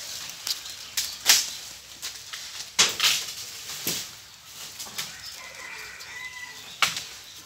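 A caged rose-ringed parakeet thrashing about in fright, its wings flapping and scrabbling against the wire cage in about six short, sharp bursts, two of them close together about three seconds in.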